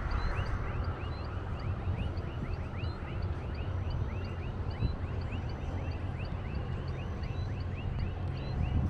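A chorus of animal calls, many short chirps several a second, over a steady low rumble.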